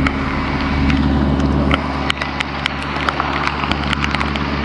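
Heavy rain, with drops landing close by as sharp, irregular ticks, over the steady hum of an engine running.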